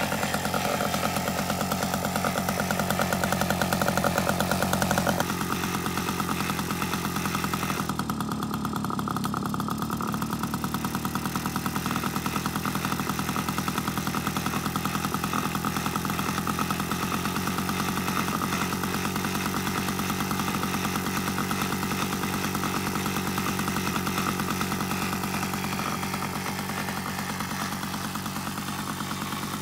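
A 1978 Sears Free Spirit moped's small two-stroke single-cylinder engine idling steadily on its stand, with a rapid, even firing beat. Its tone shifts slightly about five seconds in.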